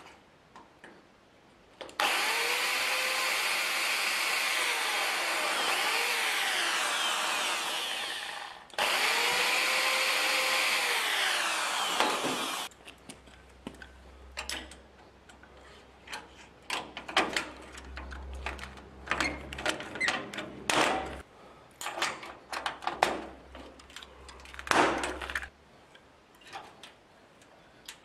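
A power drill runs twice, for about six seconds and then four, boring through galvanized steel sheet; its motor whine rises to speed and drops away at the end of each run. Then comes a scattered series of sharp clicks and snaps from a hand pop-rivet tool setting rivets in the sheet.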